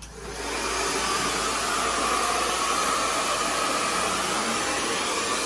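Handheld hair dryer switched on and blowing air onto hair. It builds up within the first half second, then runs as a steady rush of air with a faint whine in it.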